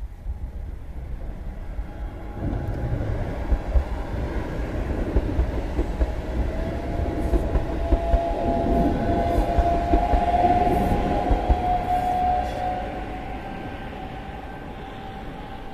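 Electric passenger train passing over a railway bridge: a deep rumble builds, peaks and fades away, with sharp clacks of the wheels on the track. Near the middle of the pass a steady high whine sits over the rumble for several seconds.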